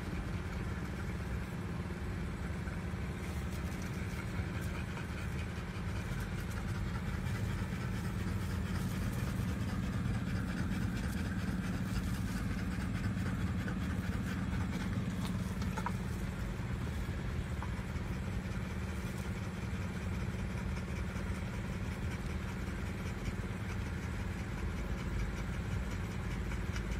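A steady, low mechanical hum that runs unchanged throughout.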